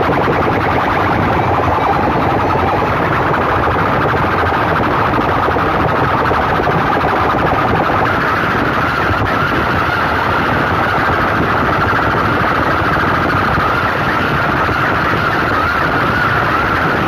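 Bank of metal horn loudspeakers from a competition sound system blasting a harsh, distorted siren-like tone at full volume. The tone is steady and settles higher about halfway through.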